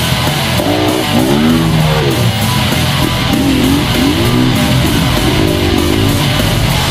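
Loud rock music led by electric guitar, with a melody line bending up and down over a steady full backing.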